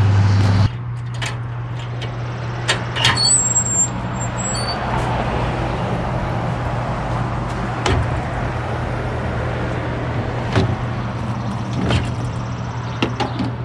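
A vehicle engine idling with a steady low hum, while equipment is loaded onto a trailer with scattered sharp knocks and clatter.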